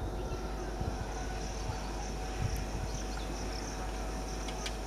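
Insects chirring steadily over the low, steady hum of an approaching electric local train (EMU), with a few soft low thumps.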